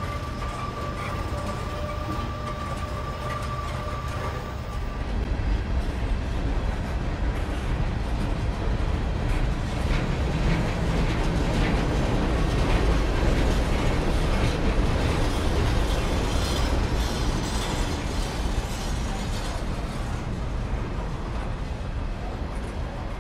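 Norfolk Southern freight train rolling past: a steady rumble of wheels on rail with rapid clicking. It grows louder about five seconds in and eases off near the end. A faint steady high tone is heard for the first few seconds.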